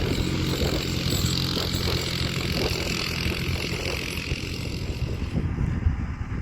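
Quad bike (ATV) engine running under load as it works back and forth across a field, levelling soil, growing gradually quieter towards the end.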